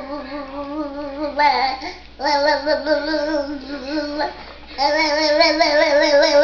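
A voice singing or howling three long wavering notes at much the same pitch, with short breaks between them.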